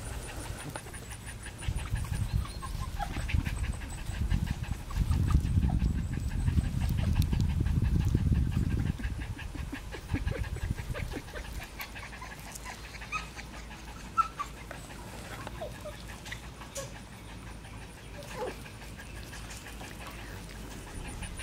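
French bulldog puppies playing, with faint short whimpers and squeaks in the second half. A low rumbling noise runs through the first nine seconds and stops.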